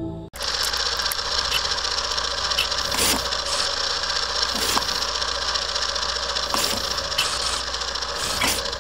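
Old-film projector sound effect: a steady mechanical whirr over a low hum, with scattered clicks and pops. It starts abruptly as music cuts off just after the beginning.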